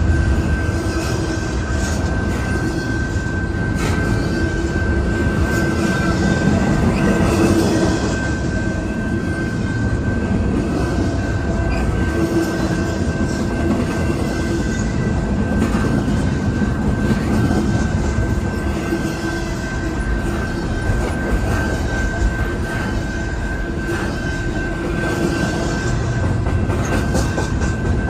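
A long intermodal freight train rolling past: a steady rumble of steel wheels on rail, with a thin, steady, high wheel squeal over it.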